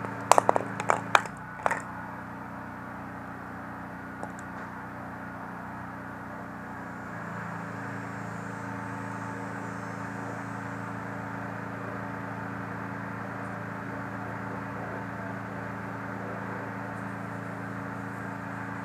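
A steady background hum with an even hiss, and a few sharp clicks and taps in the first two seconds from a threaded PVC pipe fitting being handled as thread-sealing tape is wrapped onto it.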